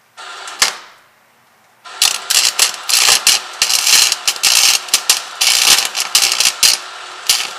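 Wire-feed welder's arc crackling and popping as a bead is run: a short burst under a second long near the start, then a steady run of about six seconds with irregular sharp pops.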